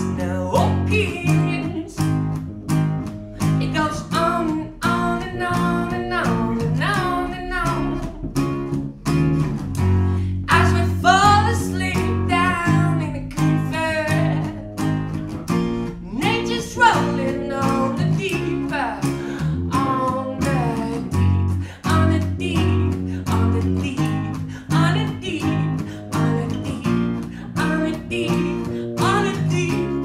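A live band playing a song: an acoustic guitar and an electric bass guitar, with a man singing over them.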